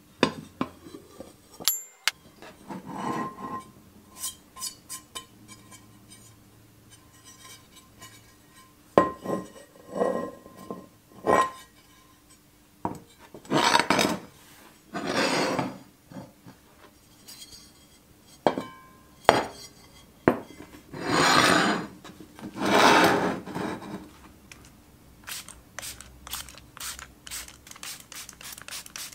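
A bare, sandblasted cast iron pan and its lid being handled on a table: metal clinks and knocks, some with a short ring, and several long rubbing and scraping sounds of iron against the table and against each other. A quick run of light clicks comes near the end.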